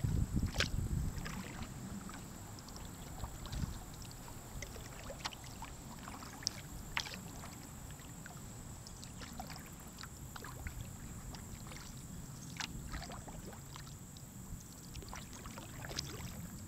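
Sea kayak gliding on calm water under quiet paddling: a low, steady rumble with scattered small water drips and ticks, a little louder in the first second or two.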